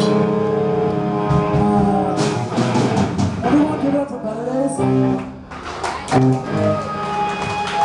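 Live rock band playing loud amplified electric guitar: chords ring out for the first couple of seconds, then busier playing with a few short stabbed hits about five and six seconds in.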